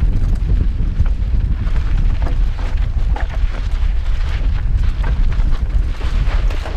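Mountain bike descending a loose, rocky dirt downhill trail at speed: heavy wind rumble on the camera's microphone, with tyres crunching over dirt and rocks and the bike clattering over the bumps in a steady run of knocks.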